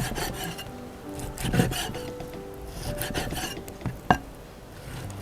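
Rasping, scraping strokes from food preparation, three of them, then a sharp tap about four seconds in, over soft background music.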